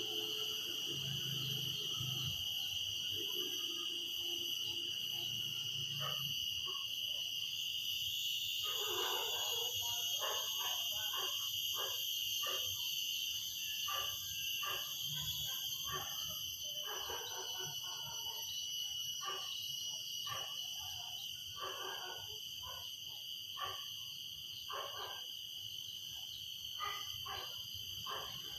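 Cicadas droning in a steady, high-pitched chorus. From about six seconds in, short irregular bursts of another animal call break in and out over the drone.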